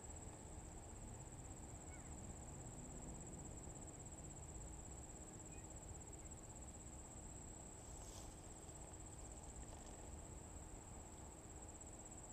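Faint insect chorus: a steady, high, unbroken trill, over a low rumble of outdoor background noise.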